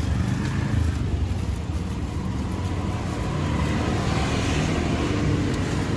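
Steady low rumble of street traffic and engine noise.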